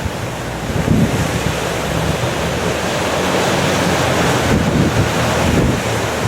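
Strong wind buffeting the microphone in gusts over rough sea, with the rush of waves.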